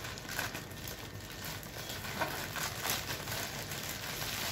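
Plastic courier mailer bag crinkling and rustling as it is pulled and torn open by hand, with a few sharper crackles.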